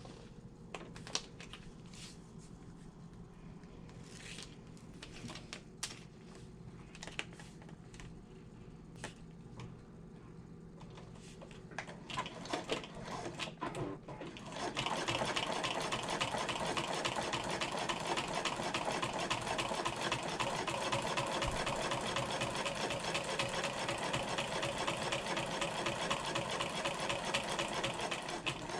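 Scattered clicks for about the first half, then a sewing machine starts running steadily at a fast, even stitching rhythm, top stitching a fabric strap.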